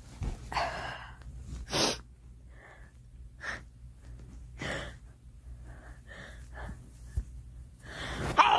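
A girl sneezing several times, with sharp gasping intakes of breath before the sneezes; the loudest sneeze comes near the end after a rising in-breath.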